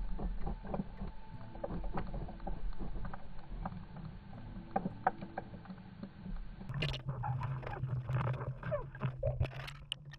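Underwater sound picked up by a submerged camera: a muffled low rumble with faint steady tones and scattered clicks and knocks. About seven seconds in, the sound turns brighter and fuller, with a steady low hum and a run of clicks and knocks.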